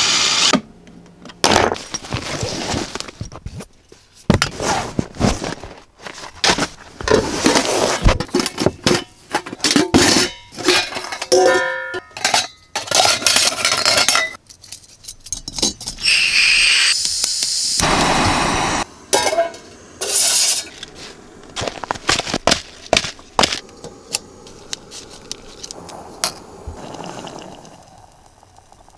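Stainless steel camping cookware (pot, lid and cups) clinking and clattering as it is handled, with a stretch of hiss about halfway through.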